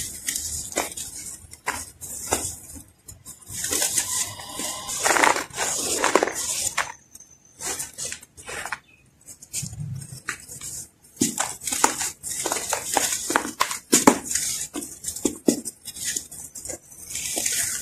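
Hands crushing hard, dry chunks of earthy sand, which crackle and crunch as they break, with the hiss of fine sand trickling back into a plastic tub in longer stretches.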